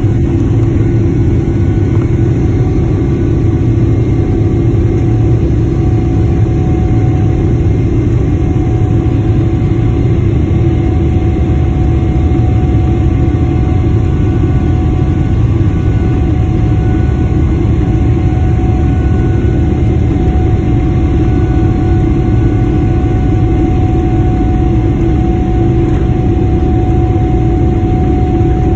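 Cabin noise by the wing of a Boeing 777-300ER: its GE90-115B turbofan engines running at low taxi power. A steady rumble with a faint whine over it.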